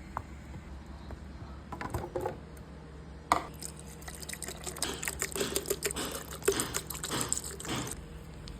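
Liquid being poured and splashing into a container, with a sharp click just before the pour and many small irregular splashes during it.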